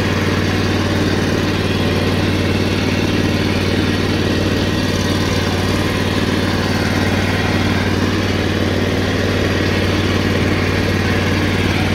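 Engine of a Toro 30-inch stand-on core aerator running at a steady speed while the machine drives across a lawn.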